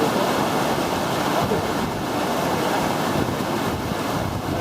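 River rapids: whitewater rushing in a loud, steady, even noise.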